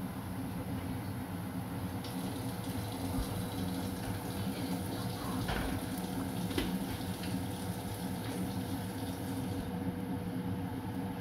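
Pot of soup simmering on the stove: steady soft bubbling over a low steady hum, with a few faint clicks.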